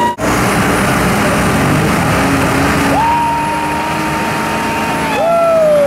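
Lifted Ford F-250 on tractor tires doing a burnout: engine revving hard over the noise of the spinning tires. The pitch climbs steeply about halfway through, holds high, then drops near the end.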